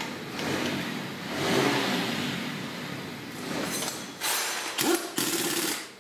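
Handheld pneumatic tool running in spurts as it drives the screws of a 70cc motorcycle engine's side cover, with two sharp, high runs near the end.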